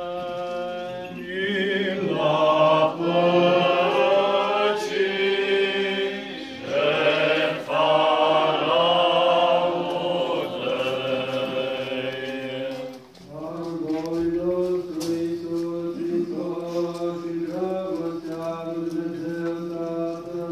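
Orthodox liturgical chant by male voices: sustained notes sung in harmony, the sung response that follows the call to offer the holy oblation at the start of the anaphora. About two-thirds in it breaks off briefly and resumes with a thinner line of held notes.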